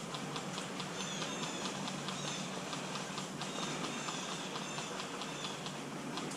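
Footsteps crackling and rustling through dry forest leaves and twigs, a dense run of small clicks over a steady hiss, with short high chirps scattered through.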